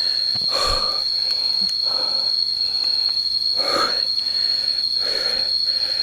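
A person breathing hard and heavily after a strenuous uphill hike in the heat, with breaths coming about every second, over a steady, high-pitched drone of jungle insects.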